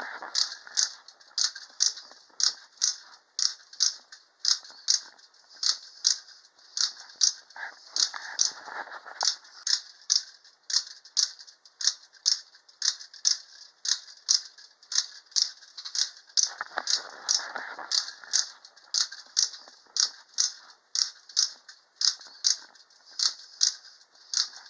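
1950s T.P.S. tin wind-up bear toy running, its tin parts clicking sharply and very regularly about twice a second.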